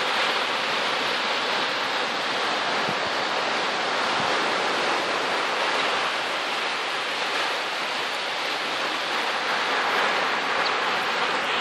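Ocean surf washing on a sandy beach, a steady unbroken rush.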